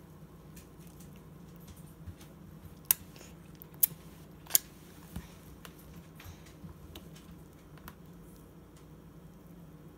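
A baby mouthing and biting on a plastic spoon: three sharp clicks a little under a second apart, about three seconds in, and fainter clicks scattered around them, over a steady low hum.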